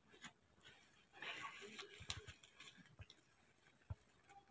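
Near silence, with a few faint clicks and a brief faint rustle about one to two seconds in.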